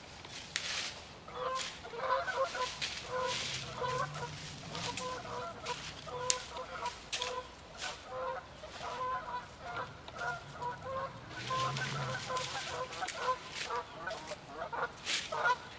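Birds calling in a long run of short, repeated calls that start about a second and a half in and continue almost to the end, with sharp cracks scattered among them.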